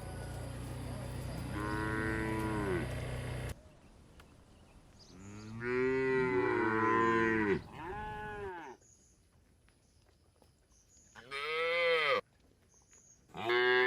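Cattle mooing: about five drawn-out calls that rise and fall in pitch, two of them overlapping as two animals call at once. A steady low rumble runs under the first call and cuts off suddenly a few seconds in.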